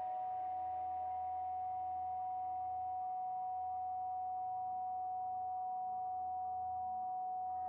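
Steady pure sine tones: a strong held tone at the 741 Hz solfeggio frequency with a fainter 963 Hz tone above it, over faint ambient meditation music.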